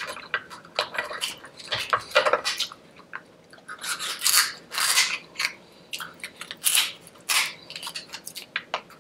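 A person eating into a close microphone: chewing with irregular crunches and sharp clicks, the loudest bunched about halfway through.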